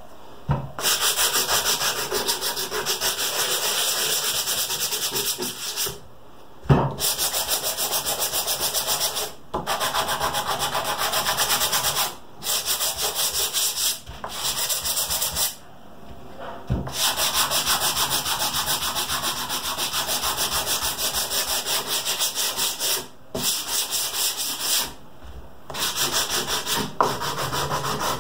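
Small wooden blocks being sanded by hand, rubbed back and forth in rapid strokes against an abrasive surface on the workbench. The strokes stop briefly several times, and a few knocks of wood on the bench stand out.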